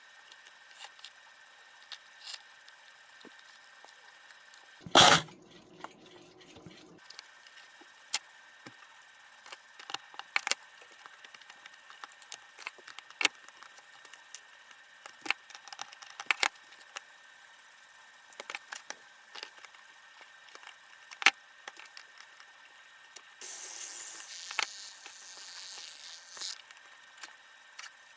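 Small tools and metal parts of a wind-up alarm clock being handled on a workbench: scattered light clicks and taps, one loud clack about five seconds in that rings on briefly, and a hiss of about three seconds near the end.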